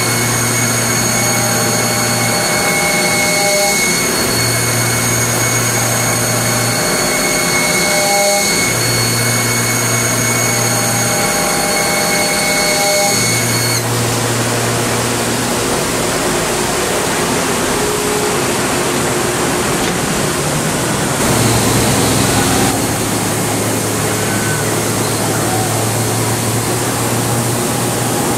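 Special-purpose soft-milling machine finish-cutting a CV-joint outer race: steady machining noise. A high whine runs through the first half and stops abruptly about halfway, while a low hum switches on and off every few seconds.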